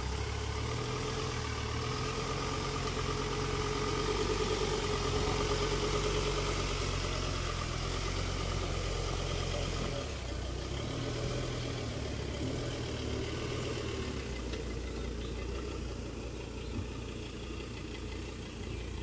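Ford Endeavour SUV's diesel engine running steadily as the vehicle crawls slowly through tall grass on an off-road trail.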